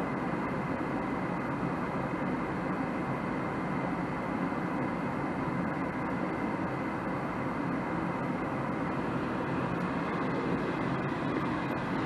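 Steady whir of a Goodman 80% single-stage gas furnace's inducer motor running during a call for heat, while the burner stays unlit because the gas valve's outlet pressure is too low.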